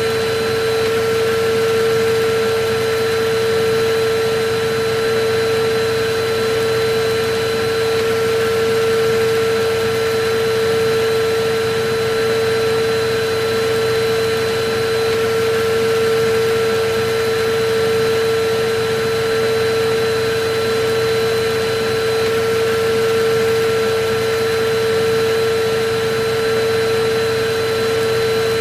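Electric vacuum cleaner running steadily: a constant motor whine over an even rushing hiss.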